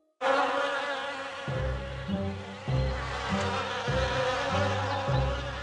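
Buzzing of a swarm of bees, a dense wavering drone, as a cartoon sound effect. About a second and a half in, light background music with a bouncing bass line joins it.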